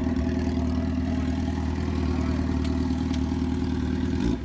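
Suzuki GSX-R750 inline-four sportbike engine with a Brock's aftermarket exhaust idling steadily, with a brief change in the note near the end.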